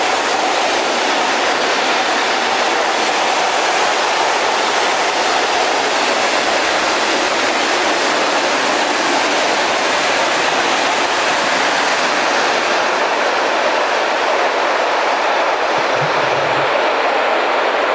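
Freight train of rail tank wagons rolling past on the track, a steady rolling noise.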